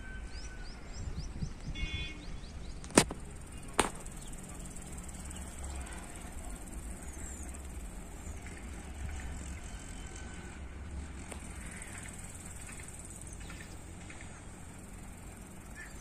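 Quiet rural outdoor ambience: a few short bird chirps in the first two seconds over a low rumble of wind, with two sharp clicks about three and four seconds in.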